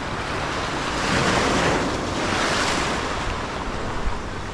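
Surf breaking and washing up onto a rocky shore: a wave swells to its loudest about a second in and fades again after about three seconds.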